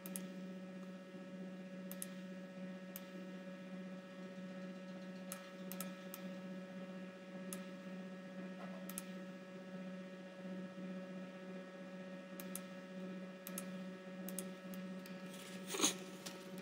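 Steady electrical hum, with scattered faint clicks of a computer mouse and a brief louder noise near the end.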